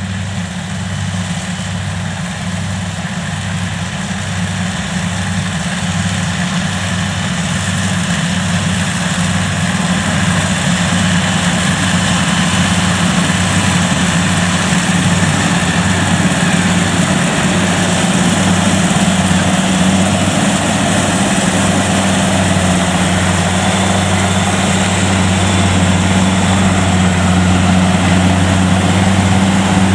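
Kubota DC70 Plus rice combine harvester running and cutting rice: a steady diesel engine drone with the clatter of the header and threshing machinery, growing gradually louder.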